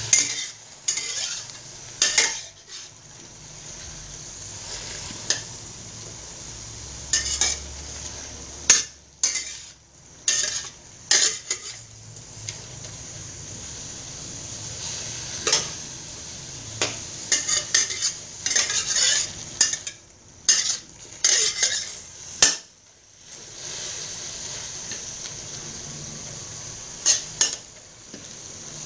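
Metal spatula scraping and clanking against a stainless steel wok in irregular bouts as leafy greens are stir-fried, over a steady sizzle.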